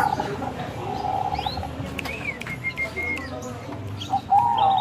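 Zebra dove (Bangkok-type perkutut) cooing: a trilled, warbling coo phrase about a second in, and a new phrase beginning near the end. Higher, arching chirps sound in between.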